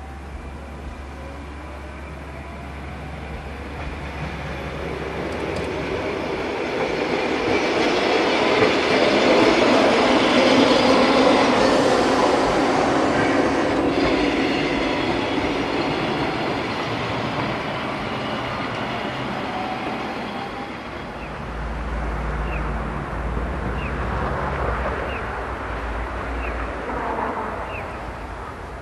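Retro-style streetcar (Kumamoto City Tram car 101) running past on its rails: wheels rumbling and clattering on the track with a faint high squeal, growing loudest about ten seconds in and then fading away. Near the end a low engine hum from road traffic takes over.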